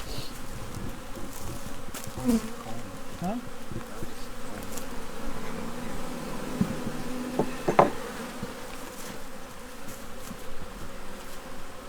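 Honey bees buzzing steadily around an open hive as its frames are inspected. A single sharp knock stands out a little before the end.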